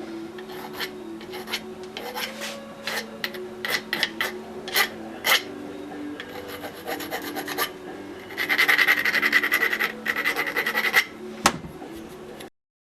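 Hand file rasping across the freshly cut end of the power steering pump inlet to flatten it. It starts with scattered separate strokes, then a fast run of short strokes for a few seconds, then a single sharp knock near the end.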